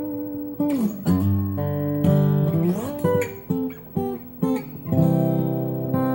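Acoustic guitar in standard tuning, played with the fingers as a vamp: picked and strummed chords ringing, with notes sliding up and down between pitches. The playing thins to short, quieter notes about halfway through before full chords return.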